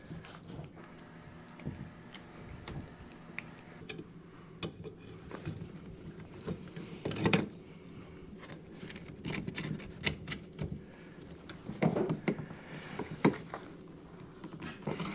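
Irregular light clicks, knocks and clatter of tools and parts being handled, over a steady low hum.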